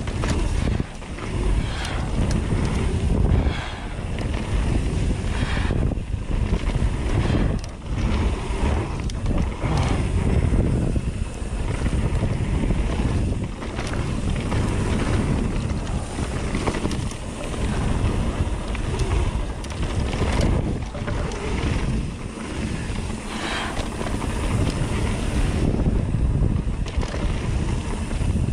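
Wind noise on the microphone from a mountain bike moving fast, with tyres rolling over a dirt trail. The bike also gives off frequent knocks and rattles as it goes over bumps.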